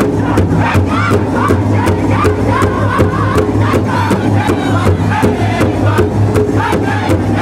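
A powwow drum group singing in high, strained voices in unison over a large hide powwow drum, which they strike together in a steady fast beat of about four strokes a second. Women's voices join the men's song.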